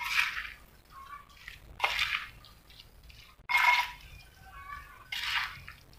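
Wet mixing strokes of a spoon working small wet anchovies through moist spice paste in a stone mortar. There are four strokes, one about every second and a half.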